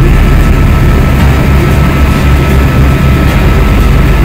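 Helicopter in flight heard from inside the cabin: a loud, steady drone of rotor and engine with a low, rapid throbbing and a thin steady whine over it.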